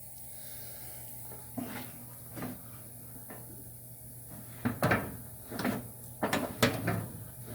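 Metal clicks and clunks of a 1954 Fargo truck's hood latch mechanism being worked by hand on its new brackets. There are a couple of knocks early on and a quicker run of them in the second half, over a steady hum.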